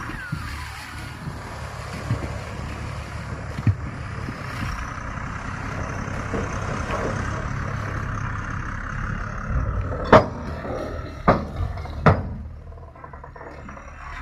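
Tata 340H backhoe loader's diesel engine running steadily under work, with a sharp knock about four seconds in and three loud metallic clanks near the end.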